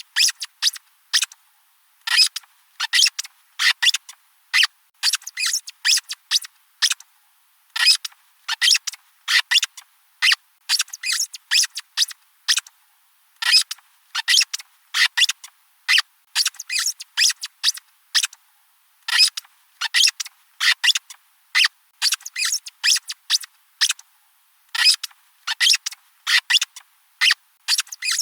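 Rubber squeaky dog toy squeezed over and over, giving short, sharp, high squeaks in quick runs of a few at a time with brief pauses between the runs.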